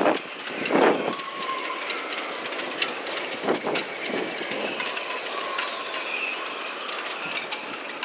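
Strong storm wind blowing, with gusts buffeting the microphone about a second in and again partway through. Under the steady rush there are thin, high whistling tones and a few light clicks.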